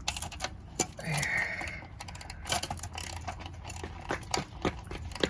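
Small metal clicks and taps of a hand tool working a tight nut on an electric chainsaw, with a longer scrape about a second in.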